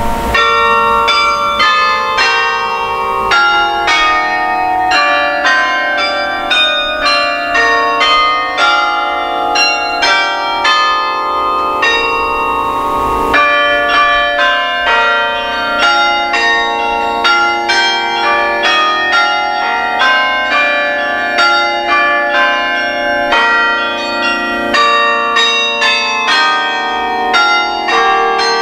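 Carillon bells played from the baton keyboard: a carol melody in quick struck bell notes over lower bell tones. Each note rings on and overlaps the next, with a fresh loud stroke about halfway through.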